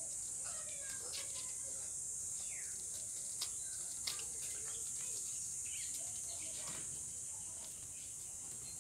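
Steady high-pitched drone of insects, with scattered short bird chirps and two faint clicks, about 3.5 and 4 seconds in.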